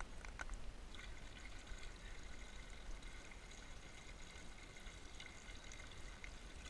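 Faint trickle of water being poured from a bait bucket into a hole in the ice, with a couple of light clicks in the first half second.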